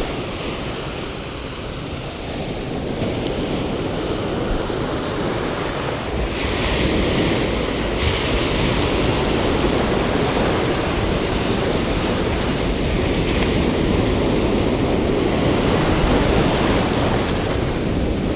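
Ocean surf breaking and washing up the beach in a steady rush that grows slightly louder.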